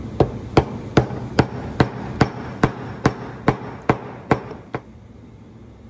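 A mallet strikes the end of a steel socket extension about twelve times at an even pace, roughly two and a half blows a second, then stops near the end. Each blow drives a 7/8-inch socket that presses a PTFE epoxy bearing into a ball joint housing.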